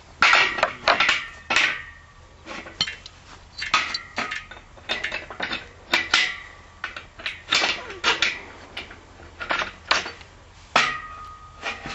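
Hammer blows and metal clanks on a galvanized steel solar-panel mounting frame. A quick run of strikes comes near the start, then irregular knocks follow, several of them ringing briefly.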